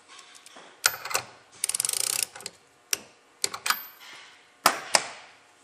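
Ratchet wrench clicking in a quick run of about a dozen clicks as the spray gun's lock nut is tightened, among sharp single metal clicks and knocks of tools on the gun.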